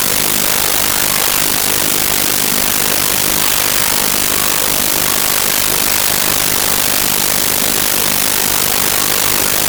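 Loud, steady hiss of static noise from a faulty audio recording, with no game sounds coming through it.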